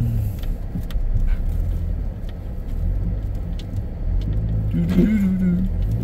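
Jeep engine running, heard from inside the cab, as the Jeep reverses away from a flooded creek crossing, with a brief higher tone about five seconds in.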